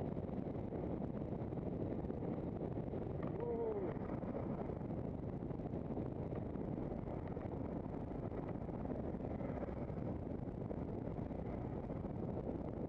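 Steady wind on the microphone and road rumble from a handcycle rolling along tarmac, with a short falling squeak about three and a half seconds in.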